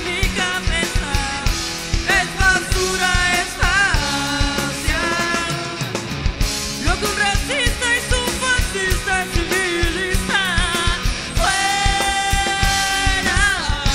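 Live rock band playing: a male voice singing over electric guitars, bass guitar and a drum kit, with one long held sung note near the end.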